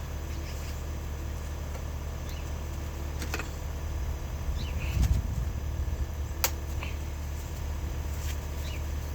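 Steady low hum with a few sharp clicks, the loudest about six and a half seconds in, and a dull thud around five seconds: scattered work noises in a repair shop.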